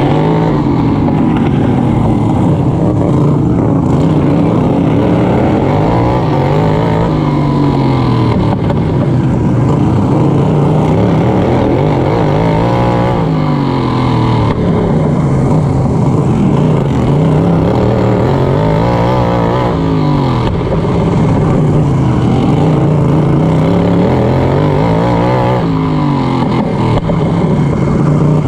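Racing lawn mower engine heard from onboard at full race pace, loud and continuous, its pitch rising and falling in a smooth arc about every six to seven seconds as the throttle goes on and off through the laps.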